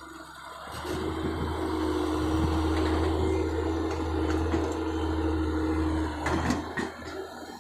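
Heavy machine's engine working under load with its hydraulics, a steady low hum and a steady whine that build up about a second in and cut off around six seconds in, followed by a few knocks.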